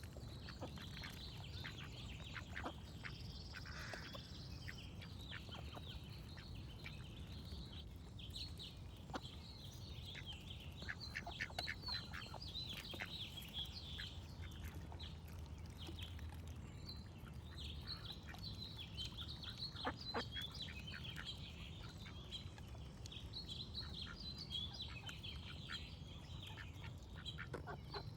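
Ducks quacking in bouts, with small birds chirping and a brief high whistle about three seconds in, over a steady low background rumble.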